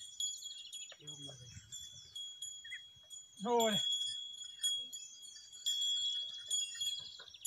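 A steady high ringing drone with scattered chirps, and one short falling shout about three and a half seconds in: a ploughman's call to a yoked pair of oxen pulling a wooden plough. A brief low sound comes about a second in.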